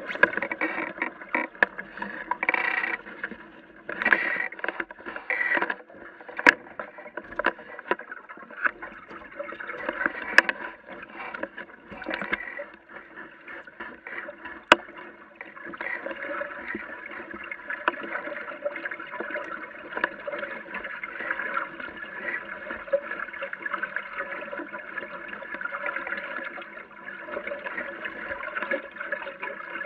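Water splashing and lapping against the hull of a small sailboat under way, with scattered sharp ticks; the wash turns steadier from about halfway through.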